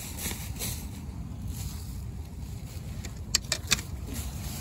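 Steady wind rumble on the microphone, with three sharp clicks close together about three and a half seconds in: a hand rake's metal tines knocking against frozen beach sand and stones.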